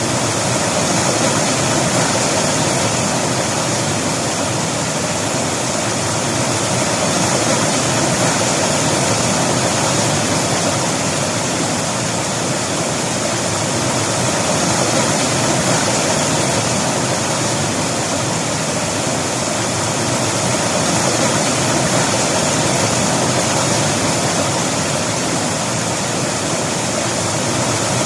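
Mountain river flowing over rocks: a steady, loud rush of water that barely changes.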